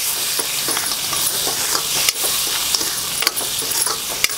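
Peas, tomato and ground masala sizzling in oil in an iron kadhai while a steel spatula stirs them, with a steady frying hiss and sharp clicks and scrapes of the spatula against the pan a few times.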